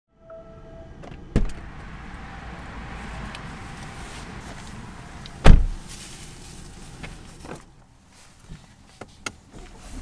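Two heavy thumps about four seconds apart, the second the louder, over a steady low rumble, then a few light clicks near the end.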